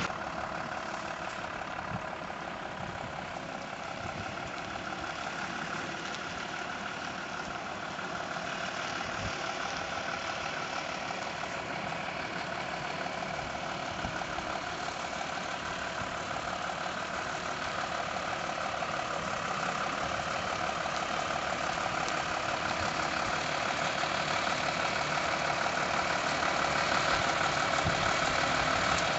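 Diesel engine of an Iveco rigid lorry running at low speed, growing steadily louder as the lorry creeps closer.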